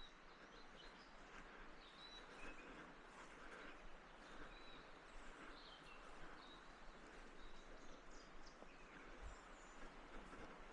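Near silence: faint outdoor ambience with scattered, faint high bird chirps.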